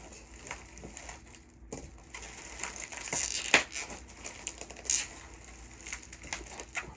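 Plastic bubble wrap crinkling and crackling as it is cut and pulled apart by hand, in irregular crackles with a sharper one about three and a half seconds in.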